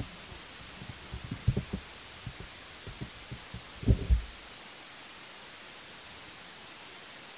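A few low, muffled thumps over a steady hiss: a quick cluster about a second and a half in and a louder pair about four seconds in.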